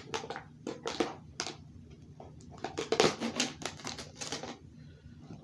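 Pringles can being handled and opened, the lid and seal crinkling: a run of sharp crackling clicks and rustles, thickest about three to four and a half seconds in, then dying down.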